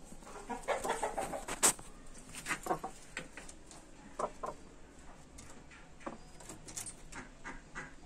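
Aseel chickens clucking in short, scattered calls, with wing flapping and a sharp click just under two seconds in.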